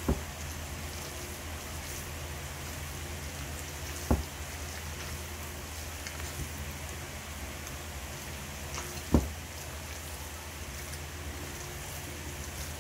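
Hands squeezing and mixing a chicken and tokwa mixture in a stainless steel bowl, the bowl knocking on the table three times, a few seconds apart. A steady hiss with a low hum runs underneath.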